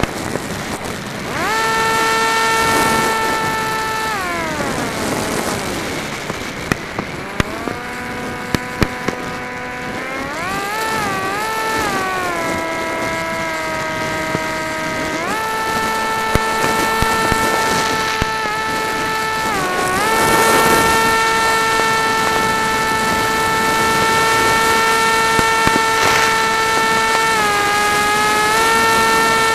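Onboard sound of an RC flying wing's propeller motor: a steady whine that falls as the throttle is pulled back about four seconds in, wavers and climbs again, and returns to full pitch about fifteen seconds in, with short dips near twenty and twenty-seven seconds. Sharp pops of fireworks bursting close by come several times between about seven and nine seconds, and a few more later.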